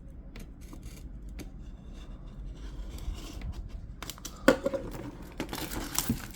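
Plastic packaging on a cardboard collector box being torn open and crinkled by hand. Scattered light taps and clicks come first, then a sharp snap about four and a half seconds in, then steadier crinkling near the end.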